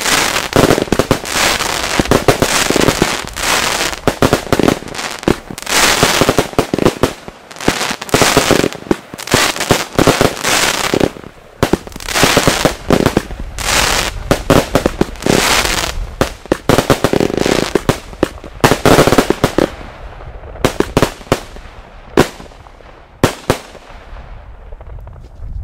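Firework batteries firing a dense barrage of shots, with bangs and crackling running together, thinning out to separate sharp bangs in the last few seconds.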